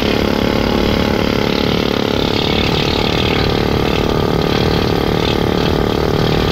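Pneumatic needle gun hammering rust off steel boat plating, a loud steady rattle that chips down through surface rust toward good metal.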